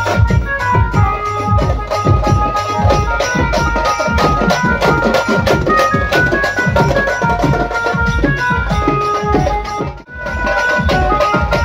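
Loud procession drumming: a street band's stick-beaten drums play a fast, dense rhythm, with a tune running over it. The sound dips out sharply for a moment near the end, then comes back.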